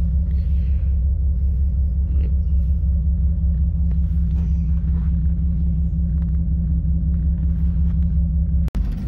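Steady low rumble of a vehicle's engine and tyres heard from inside the cabin while it drives slowly over a rough dirt track. The sound cuts out for an instant near the end.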